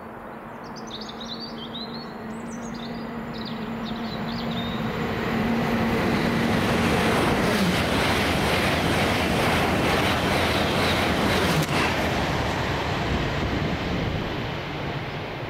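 A train approaching and passing through a station: its rumble builds over about five seconds, stays loud for several seconds, then fades. A steady hum drops in pitch as it goes by, about halfway through. Small birds chirp at the start.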